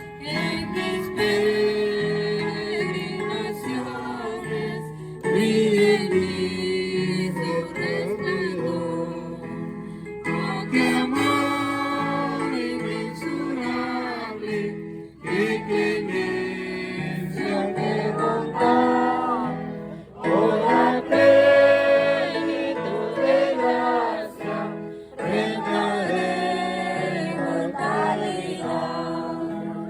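A group of voices singing a Christian hymn together, in phrases of about five seconds with short breaks between them.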